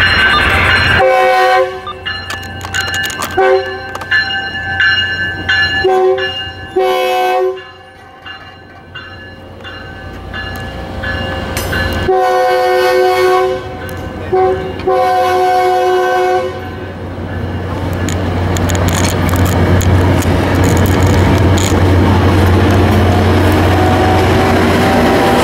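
Tri-Rail commuter train's horn sounding a series of blasts as it runs into a grade crossing: several short and medium blasts, then a long, a short and a long one about halfway through. After that the train passes close by, the diesel locomotive at the rear rumbling steadily with wheel and rail noise.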